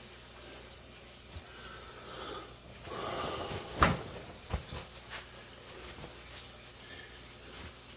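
Kitchen handling sounds: a rustle, then one sharp knock about four seconds in and a few lighter knocks after it.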